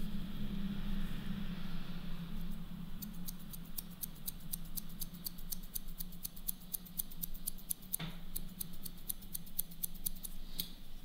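Hairdressing scissors snipping hair in a fast run of light cuts, several a second, that starts about three seconds in and breaks briefly about two-thirds through: point cutting into the ends. A low steady hum runs underneath.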